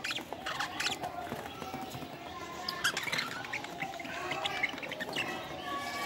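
A flock of budgerigars chattering: many short, overlapping chirps and squeaks.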